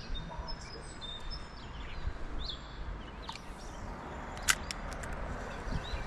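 Small birds chirping in short, scattered calls over a steady low outdoor background, with one sharp click about four and a half seconds in.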